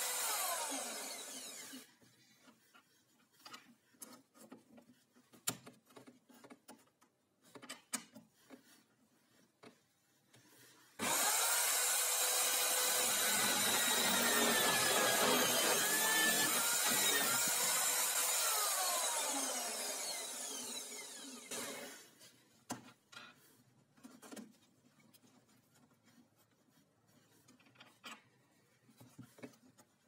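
Power drill in a drill stand boring into a plywood disc with a Forstner bit: it winds down in the first two seconds, starts again suddenly about eleven seconds in, cuts for about ten seconds, then winds down. In the pauses, light knocks and rubs of the wooden jig and disc being handled.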